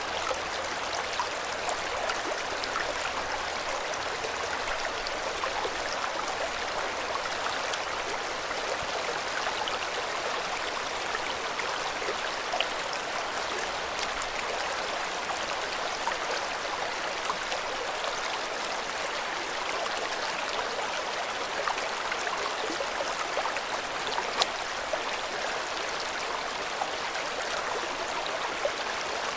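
River water flowing and splashing over stones: a steady rushing with small scattered splashes and gurgles.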